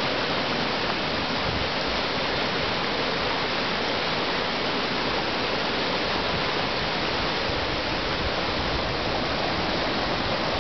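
Water spilling over a low-dam spillway and churning in the turbulent hydraulic jump below it: a steady, even rush of white water.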